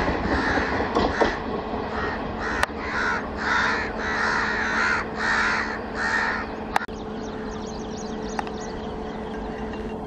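Crows cawing repeatedly, a string of harsh calls about half a second each, over the fading rumble of a passenger train going away. About seven seconds in, the sound cuts abruptly to a quieter steady hum with faint, rapid high chirps.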